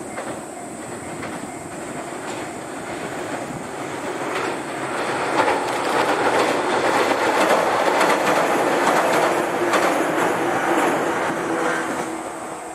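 JR 115 series three-car electric train passing over a railway bridge, its wheels clattering over the rail joints. It grows louder, is at its loudest about six to ten seconds in, and fades as it moves away.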